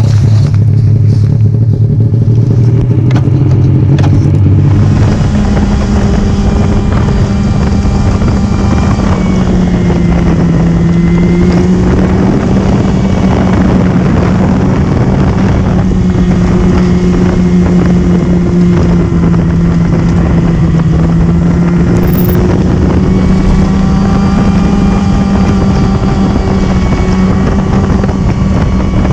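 Snowmobile engine running at low revs, then picking up speed about five seconds in and holding a steady higher pitch while cruising.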